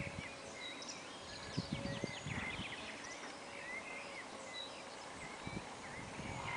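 Small birds chirping and twittering in short, quick calls, with a few soft low thuds.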